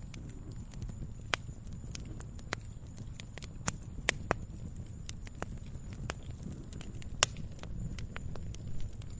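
Firewood burning: irregular sharp crackles and pops over a low steady rumble of the flames, the loudest pops about four and seven seconds in.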